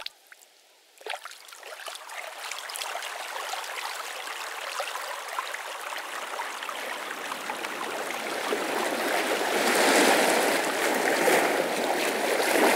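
Trickling, bubbling water. It comes in about a second in and grows steadily louder.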